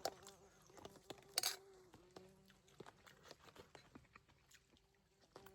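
Faint scattered clinks and taps of dishes and utensils during a meal, with one short louder clatter about a second and a half in. A faint steady hum runs underneath.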